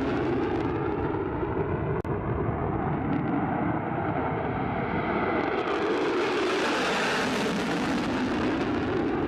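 F-35 fighter jet flying past in afterburner: a steady, loud rush of jet noise. There is a brief break about two seconds in, and the high hiss dulls through the middle and comes back near the end.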